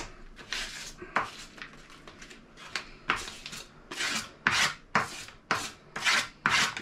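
Kitchen knife cutting soft butter into pieces: a run of about ten short rasping scrapes against a board, coming faster, about two a second, in the second half.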